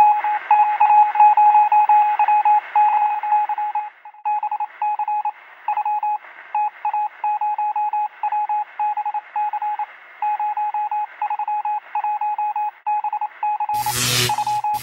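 Electronic beeps in a Morse-code-like pattern: one steady mid-pitched tone keyed on and off in short and longer beeps, with a thin, radio-like hiss behind it. About a second before the end, a loud full-range burst of sound breaks in.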